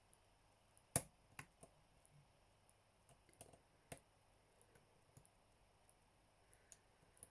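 Small, sparse metallic clicks of a lock pick working the pins inside a Yale Superior 1-star cylinder lock, the sharpest about a second in.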